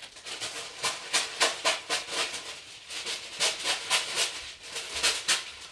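Parchment paper rustling and crinkling in irregular crisp strokes as it is handled and pressed in to line a cast iron loaf pan.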